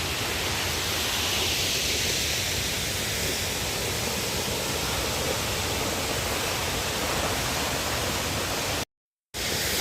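Waterfall rushing: a steady, even roar of falling water, broken by a brief silent gap near the end.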